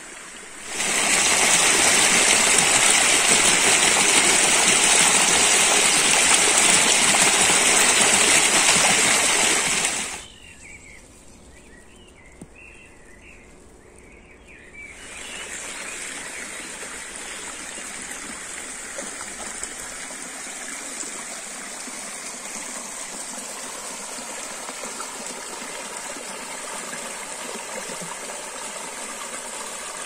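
Shallow mountain stream flowing over stones and small cascades. The water rushes loudly and close for the first ten seconds or so, then drops suddenly to a faint trickle, and comes back at a moderate, steady level about five seconds later.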